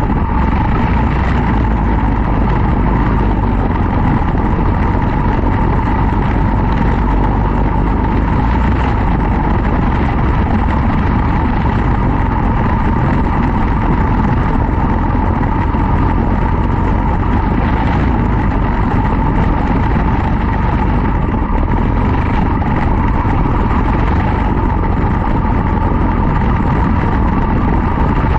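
Quarter midget race car's single-cylinder Briggs & Stratton Animal engine running steadily at racing speed.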